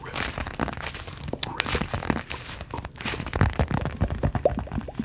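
Hacky sack being squeezed and kneaded in the hands, its filling crunching in a dense, uneven run of crackles.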